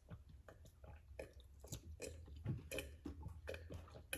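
Someone chewing a mouthful of hard-boiled egg close to the microphone: soft, irregular mouth clicks and smacks.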